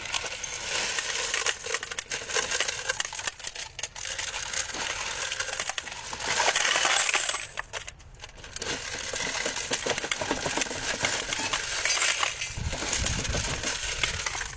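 Loose brass cartridges clinking and rattling against one another as they are pulled out by hand and dropped onto a heap of rounds. The metallic jingling is continuous and loudest about six to seven seconds in.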